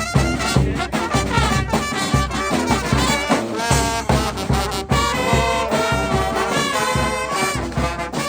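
Brass band playing live: trumpets and trombones carrying the tune over a steady drum beat.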